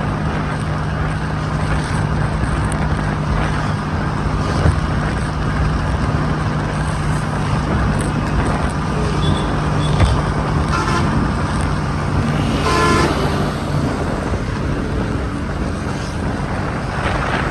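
Motor scooter riding through traffic: wind rushing over the microphone and a steady engine hum, with a vehicle horn sounding once for about a second near the end.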